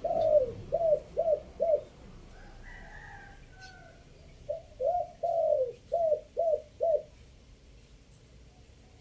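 Spotted dove cooing in two phrases of several short coos, each with one longer, drawn-out falling note. The first phrase is already under way at the start and the second begins about four and a half seconds in.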